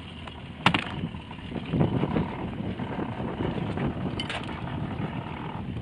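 Wind buffeting the microphone and choppy water slapping around a small boat, with a sharp knock about two-thirds of a second in and a few light clicks later.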